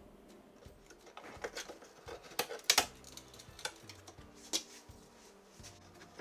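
Sheetrock being pried and broken away by hand: a string of irregular clicks, knocks and crumbling snaps, loudest about two and a half seconds in, dying away before the end.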